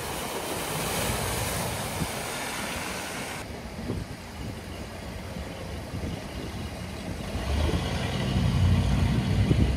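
Mercedes GLA wading through a flooded ford, water splashing and hissing around its wheels. After an abrupt cut, a classic pickup truck's engine rumbles low, getting louder over the last couple of seconds.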